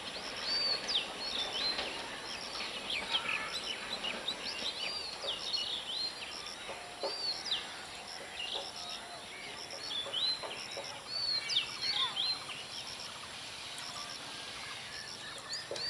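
Birds calling from the trackside vegetation: many short, overlapping, arched and upswept chirps, high-pitched and repeating, over a faint steady outdoor hiss.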